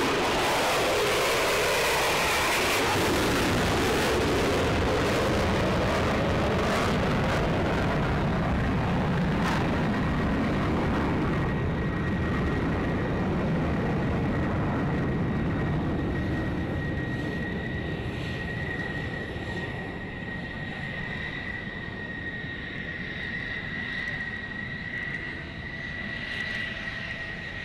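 F-35 fighter's single jet engine (a Pratt & Whitney F135 turbofan) as the jet flies past, loud and dropping in pitch in the first few seconds, then fading as it moves away. A steady high whine comes in about halfway through.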